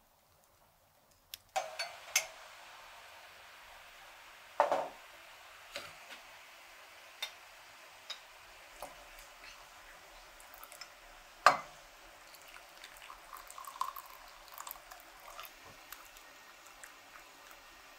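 Water running and dripping at a kitchen sink, starting about a second and a half in. Clinks of porcelain and glass come through it, the two loudest sharp ones about five and eleven seconds in. Near the end hot water pours from a kettle spout into a tea glass.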